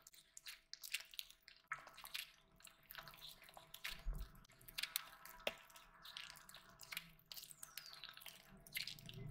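Close-miked wet eating sounds: fingers mashing rice and curry and mouth chewing, with many small irregular smacks and clicks.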